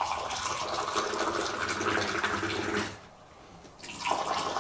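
Moroccan tea poured in a long stream from a high-held metal teapot into small glasses, splashing as it lands. The pour stops just before three seconds in and starts again about a second later.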